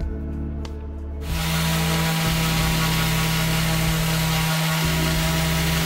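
Parkside orbital sander starting up about a second in and then running steadily, a constant motor hum under the hiss of 120-grit paper sanding a mahogany board.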